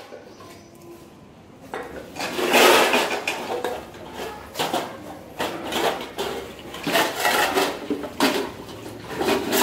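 Stainless steel pots, plates and bowls clanking and clattering against each other and the stone floor as they are handled and washed. The clatter starts about two seconds in and comes in repeated bursts.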